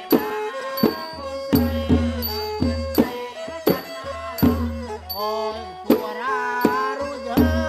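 A Surin kantrum ensemble playing in slow tempo. A reed pipe (pi o) and a kantrum fiddle play a sliding melody over kantrum hand drums and small ching cymbals, with strokes about twice a second.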